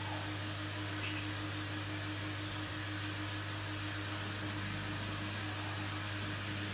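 Steady low electrical hum with an even hiss over it, as from aquarium equipment such as a filter pump running.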